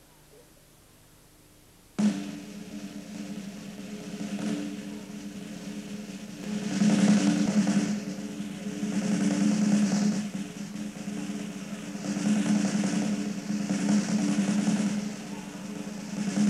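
Snare drum roll from a circus band, starting suddenly about two seconds in and swelling and easing in waves over a steady low note, the suspense roll played under a stunt.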